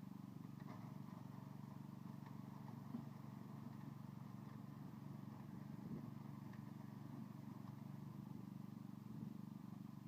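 Small portable generator engine running at a steady speed, a faint, even hum.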